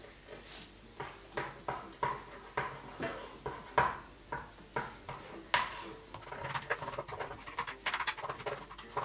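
Plastic spoon stirring a thick, foamy mixture of white glue, shaving foam and water in a ceramic bowl: wet squelching strokes with a light scrape against the bowl, about two a second, turning faster and denser about six seconds in.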